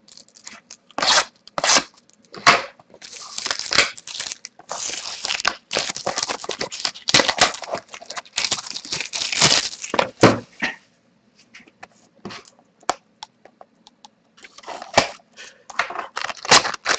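Plastic wrapping being torn and crinkled off a sealed box of trading cards and the cardboard box opened, in a run of tearing and crackling bursts for most of the first ten seconds, then scattered clicks and a little more rustling near the end as the packs come out.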